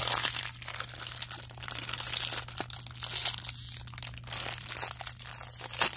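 Foil blind bag of a Funko Mystery Mini crinkling and crackling as it is torn open and handled, an irregular run of fine crackles without pause.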